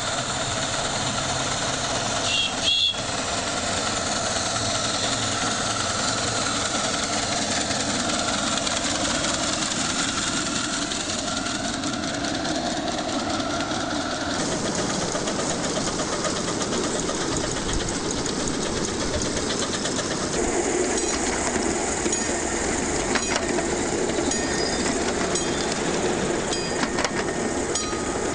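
Miniature ride-on railway train running along the track: a steady mechanical rumble and rattle of the train in motion, with a brief high squeal about three seconds in and quick clicks of wheels over rail joints in the last third.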